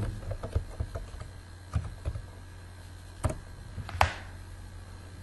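Computer keyboard keys clicking in irregular, scattered keystrokes as text is typed, the loudest click about four seconds in, over a steady low electrical hum.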